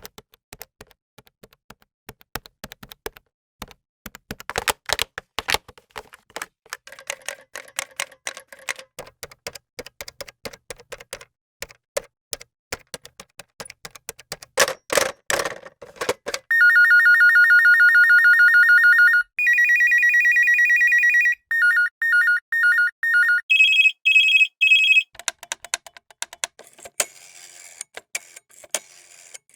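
Irregular clicking and clacking like typing for the first half. This gives way to a series of electronic telephone ring tones: a long warbling ring, a higher ring, a string of short rapid beeps, then three high beeps. Softer clicking and hiss follow near the end.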